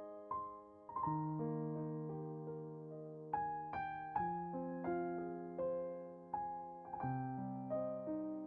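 Slow, gentle background piano music: single notes struck about every second over held chords, each note fading away.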